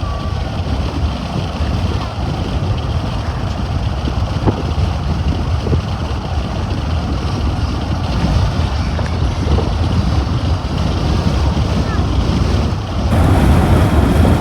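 Wind buffeting the microphone: a steady, loud, low rumbling noise that grows louder about thirteen seconds in.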